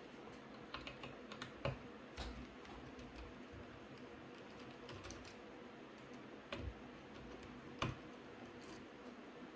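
Small screwdriver clicking and tapping on the screws and metal backplate of a graphics card as the backplate screws are undone: faint, scattered light clicks, the sharpest near two seconds and near eight seconds in.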